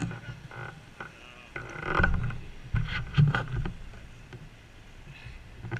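Wind buffeting the microphone of a handlebar-mounted action camera on a moving road bike, a gusty rumble that swells and fades, with tyre hiss on wet asphalt and a few sharp knocks a few seconds in.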